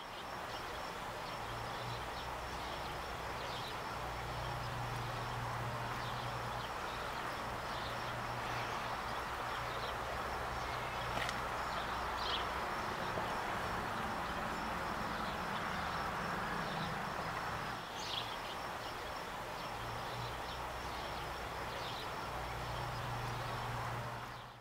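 Steady outdoor ambience: a low rumble and hum under an even wash of noise, with faint short bird chirps now and then.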